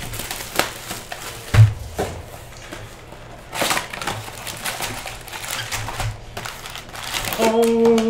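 Plastic shrink-wrap crinkling and cardboard scraping as a trading-card box is unwrapped and opened, with a knock about one and a half seconds in. A short steady hum near the end.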